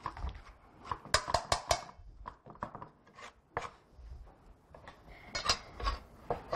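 Chef's knife mincing onion on a wooden cutting board in irregular knocks, with a quick run of strokes about a second in, mixed with clinks of a potato masher mashing avocado in a metal bowl.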